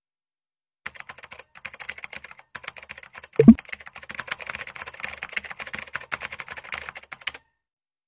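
Computer keyboard typing sound effect: rapid key clicks from about a second in until shortly before the end. A short, louder pop cuts in about three and a half seconds in.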